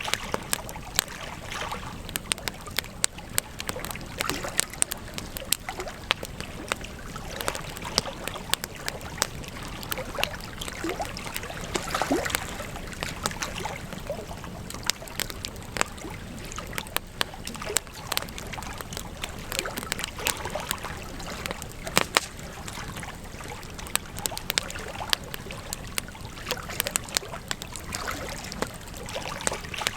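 Wood campfire burning, with frequent sharp, irregular crackles and pops over a steady hiss of flame.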